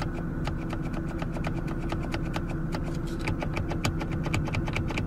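Steady low hum of an idling engine heard from inside a Mercedes-Benz CLS 350 cabin, with a regular sharp ticking of about three to four clicks a second over it.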